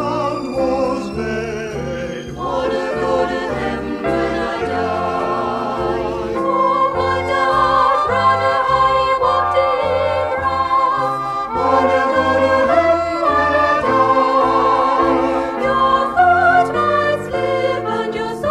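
A vocal group singing a sacred song in close harmony, with instrumental accompaniment and a bass line moving under the voices.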